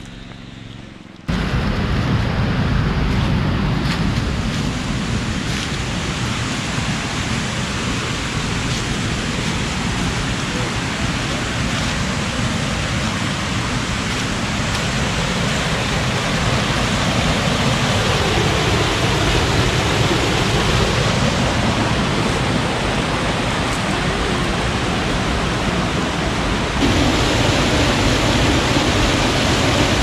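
Rushing creek water, a steady loud rush that cuts in suddenly about a second in and steps louder near the end.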